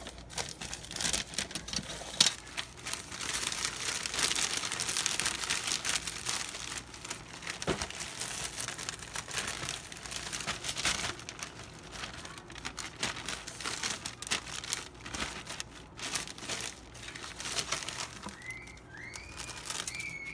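Plastic poly mailer crinkling and rustling as a wrapped package is pushed into it and the bag is handled, with irregular crackles throughout, busiest in the first half.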